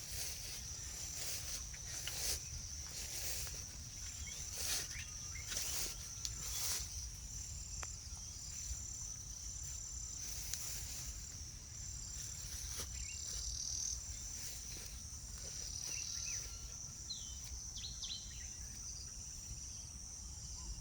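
Insects trilling steadily at a high pitch in a regular pulsing pattern, with a few short bird chirps in the second half and bursts of rustling noise in the first several seconds, over a low outdoor rumble.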